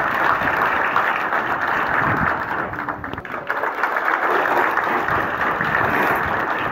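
A crowd of schoolchildren applauding, a dense steady clapping that eases a little about three seconds in.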